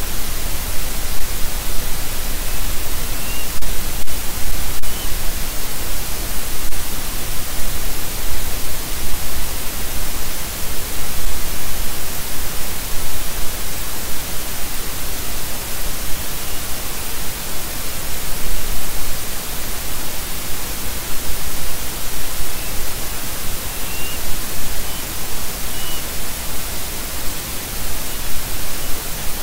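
Loud, steady hiss of static from the eagle nest camera's microphone feed, with a few faint, short, high chirps.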